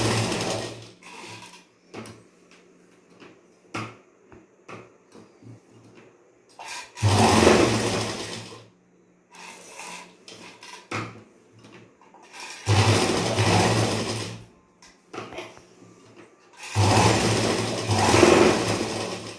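Durby sewing machine stitching cloth in four short runs of a second or two each, with small clicks of the fabric being handled and repositioned between runs.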